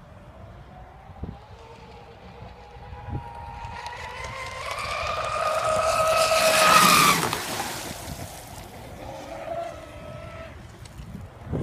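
Pro Boat Zelos 36 RC catamaran's twin brushless motors whining at full speed as the boat runs past, with the hiss of its spray. The whine climbs in pitch and grows louder to a peak about seven seconds in, then drops in pitch and fades as the boat moves away. A fainter whine returns near the end.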